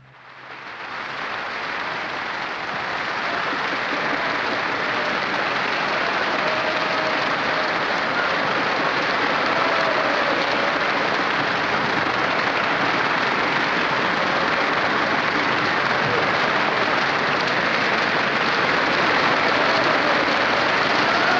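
Theatre audience applauding at the end of a ballet performance, swelling over the first two or three seconds and then holding steady.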